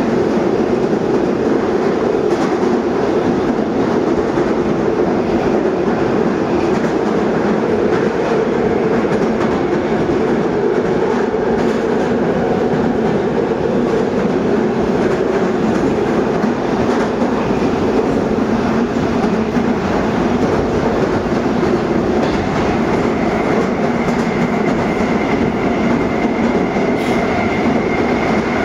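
81-775.2/776.2/777.2 "Moskva 2024" metro train heard from inside the car, running at speed through the tunnel: a steady rumble of wheels on rail with light, scattered rail clicks. A faint, steady high whine comes in a little after three-quarters of the way through.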